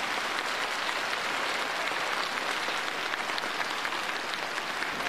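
Audience applauding: a steady mass of hand claps after a children's dance number ends.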